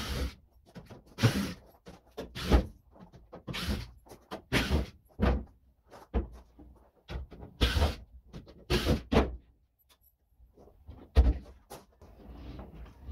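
Cordless drill backing screws out of a plywood crate lid in a string of short bursts, about one a second, with a short pause shortly before the end.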